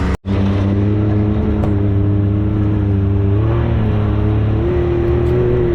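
Can-Am Maverick X3 side-by-side engine running steadily under light load, its pitch rising and dipping a little partway through; the sound cuts out for a split second just after the start.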